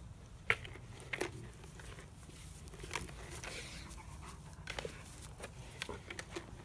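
A Great Dane chewing and mouthing something on the grass: irregular sharp crunches and clicks, the loudest about half a second in.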